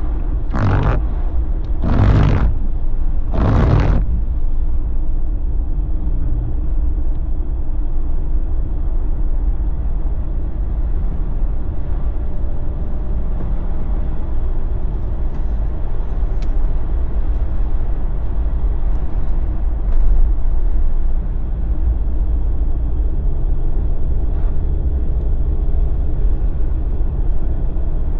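Steady road noise of a Jeep driving: a low drone from the engine and tyres on the road. Three short whooshes come about a second and a half apart near the start.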